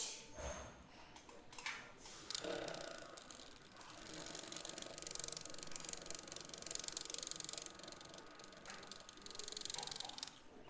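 Handling noise from fishing rod blanks on a wrapping machine: a few light clicks and knocks, then a steady fine rattling hiss from about four seconds in until near the end.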